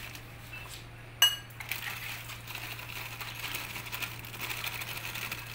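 A single sharp metallic clink of a spoon against the bowl about a second in, then a fine, steady trickle and crinkle as salt is poured from a plastic packet into the bowl of spice paste.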